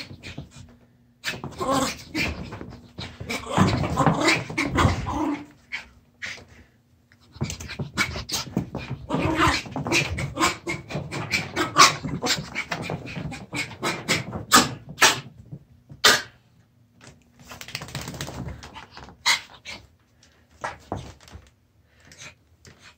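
Yorkshire terrier scrabbling, rubbing and rolling itself dry on a rug and couch, in three rough bursts of rustling and sharp paw scratches with short pauses between them.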